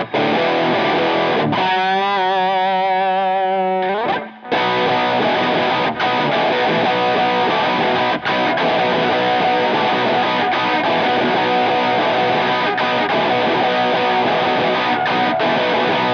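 Suhr Classic electric guitar played with overdrive distortion. For about four seconds it holds notes with wide vibrato, then stops briefly. It comes back in with a driving distorted riff of held chords, broken by a few short stops.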